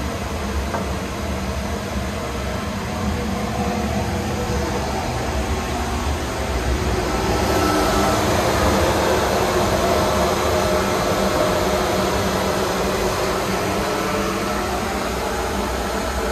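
AC Horn Bauer 322 dry nut roaster running with its gas burner lit: a steady machine noise of the air/mix blower and burner flame, growing louder about seven seconds in.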